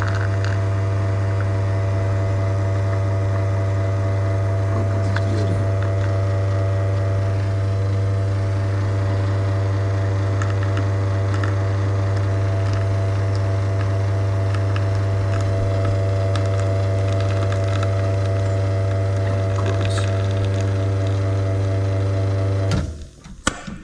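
Espresso machine's rotary pump running with a steady hum during the shot, then switched off about 23 seconds in as the extraction is stopped.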